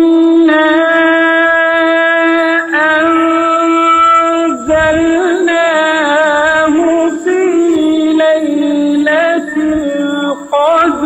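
A solo voice chanting Quranic recitation in melodic tajweed style, holding long notes with ornamented turns in pitch and short pauses between phrases.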